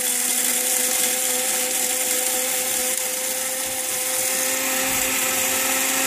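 The built-in coffee grinder of a Black & Decker Mill & Brew CM5000B coffee maker running steadily on its 4-cup setting, grinding whole coffee beans. It makes an even motor whine with a gritty hiss over it.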